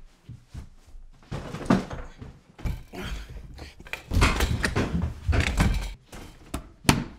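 A sash window being worked in its frame: thumps and stretches of scraping, rattling noise as it is pushed and slid, then a few sharp knocks near the end.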